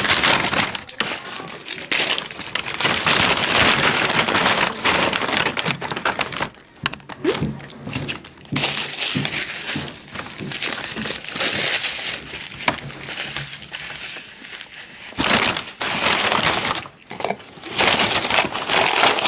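Fast-food paper wrappers crinkling and crumpling close to the microphone, in several long stretches with short pauses between.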